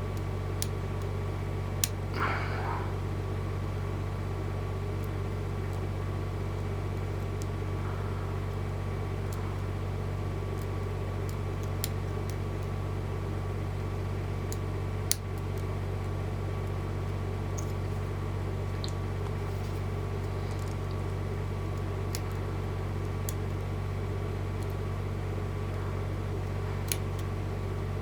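A steady machine hum runs throughout, with faint, irregular small clicks of a hook pick and tension wrench working the security pins of a Pacific 100G padlock.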